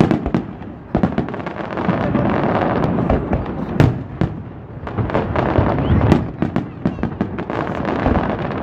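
Aerial fireworks shells bursting in quick succession: many sharp bangs and crackles over a continuous rumble, with the biggest bangs about four and six seconds in.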